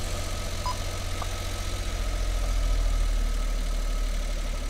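Suzuki Every DA52V van's 660 cc three-cylinder engine idling steadily just after a restart, heard from inside the cabin. It is a test run with new ignition coil packs fitted, checking for an intermittent rough running and hunting fault.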